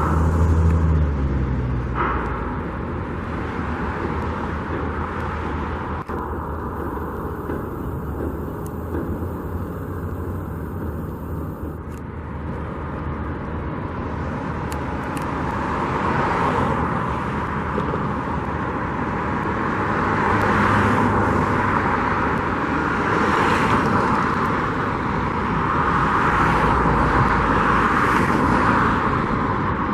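Outdoor road traffic noise: a steady hum of vehicles, with several passing cars swelling up and fading in the second half.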